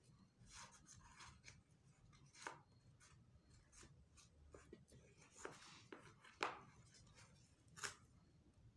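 Faint handling noise of a cardboard ring and paper sticks on a hard tabletop: light rustles and scrapes with a few sharper taps, the loudest about two-thirds of the way through.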